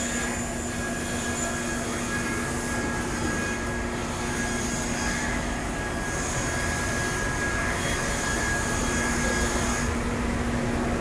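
Steady drone of a running CNC router installation, with a constant low hum and a thin high whine over a rushing noise.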